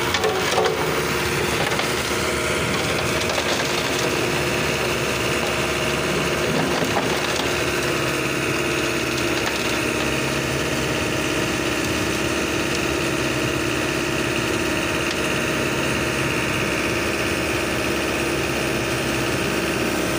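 Transit mixer's rear drum-drive engine revved up, climbing in pitch over the first couple of seconds and then held steady at raised speed, with the drum turning in discharge.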